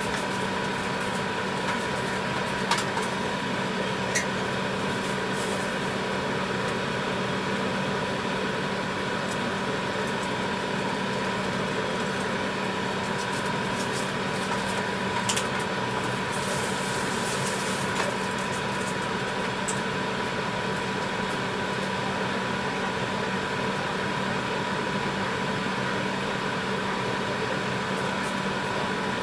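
A steady machine hum from kitchen equipment running, over a pan of tteokbokki sauce boiling, with a few soft pops from bursting bubbles.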